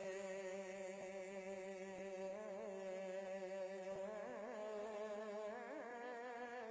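Background vocal music: a voice sings or hums one long held note with a slight waver.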